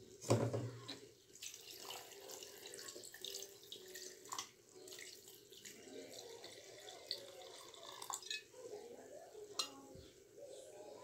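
Cold water pouring from a plastic bottle into a glass blender jar full of orange pieces, splashing and trickling, with small clicks throughout. A sharp knock about a third of a second in is the loudest sound.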